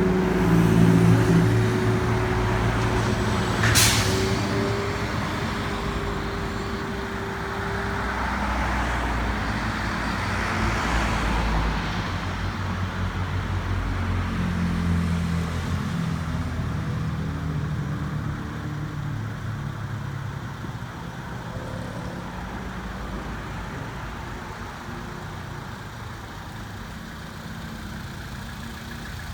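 Motor vehicle engine running, with a short sharp hiss about four seconds in; the sound grows fainter over the second half.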